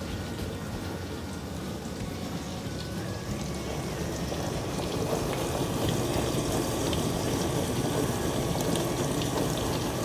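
Frigidaire dishwasher running a wash cycle, water spraying and sloshing steadily inside the tub, growing slightly louder. It runs without grinding, its drain pump motor newly replaced.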